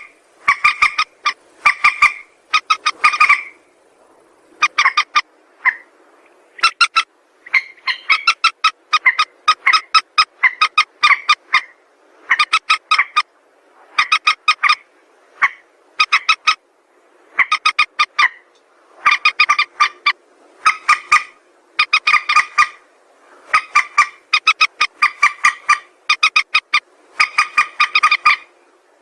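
Mandar sawah, a rail of the rice fields, calling: loud phrases of rapid, clipped, nasal notes, one phrase about every second with short pauses between them. This is the kind of recording used to lure the bird.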